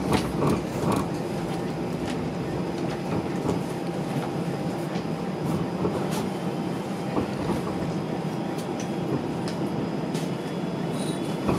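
A TTC Flexity Outlook low-floor streetcar running along its track, heard from inside the car: a steady rumble of wheels on rail and running gear, with scattered clicks and knocks.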